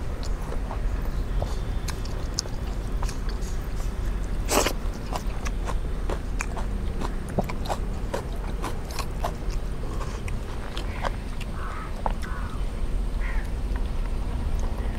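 People eating biryani quickly: chewing, with small scrapes and clicks of eating from plates, and one sharper click about four and a half seconds in.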